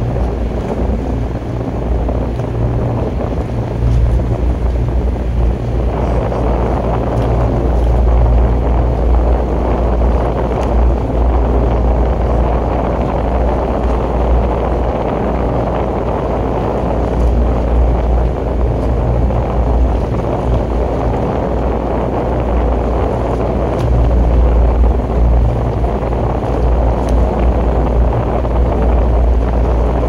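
Motorboat's outboard engine running steadily, a low hum under wind rumbling on the microphone; the rush grows louder about six seconds in.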